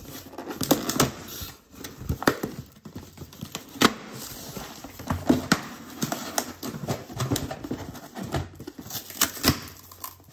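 A corrugated cardboard box being torn open and its flaps pulled apart by hand: an irregular run of sharp rips, snaps and crinkles of cardboard.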